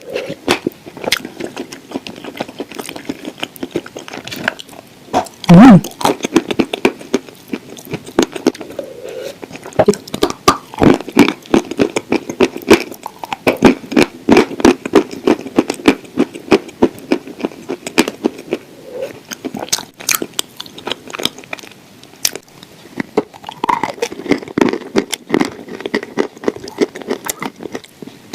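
Crunchy biting and chewing of dry clay shortbread cookies close to the microphone, in a dense, irregular run of crunches. One much louder, low thud comes about six seconds in.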